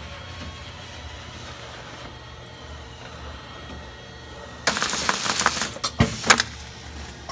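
CH1800 automatic packaging machine and its belt conveyor running with a steady hum. About two-thirds through, the machine cycles to wrap a packet of small parts in bubble film: a loud burst of clacking and rushing noise lasting about two seconds, followed by two sharp mechanical knocks.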